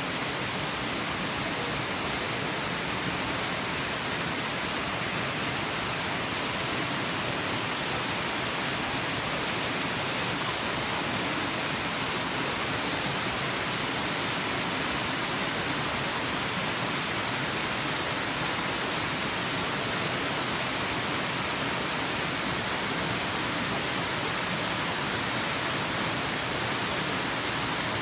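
Steady rushing water: an even, unbroken hiss that stays at one level throughout.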